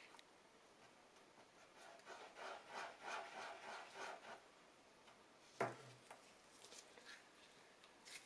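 Faint rubbing of a gloved hand wiping back and forth across a smooth board, in short strokes about three a second for a couple of seconds, followed by a single sharp click.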